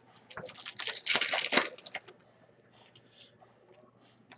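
A foil trading-card pack is torn open by hand: a dense crackling rustle of the wrapper for about a second, peaking early on. Then come faint scattered clicks and slides as the cards are handled.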